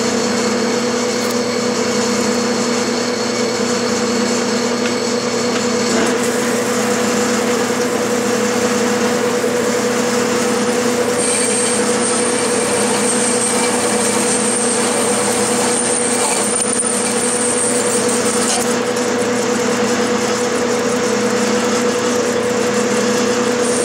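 Clausing metal lathe running with a steady hum while a facing tool cuts the tapered V-groove of a pulley. A thin high whine joins in for several seconds midway.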